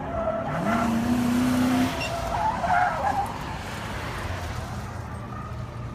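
Police cars being driven hard through a tight cone course: an engine revs up about half a second in and holds, then tyres squeal through a sharp turn about two to three seconds in.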